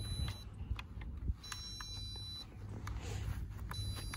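High-pitched electronic beeping from an MJX Bugs 3 quadcopter setup on the ground, propellers not yet turning: three separate tones about one and a half to two seconds apart, each lasting up to about a second. Wind rumbles on the microphone underneath.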